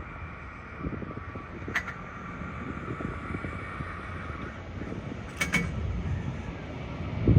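Boeing 737-800's CFM56 jet engines running, a steady high whine over a low rumble, with two short sharp clicks about two and five and a half seconds in.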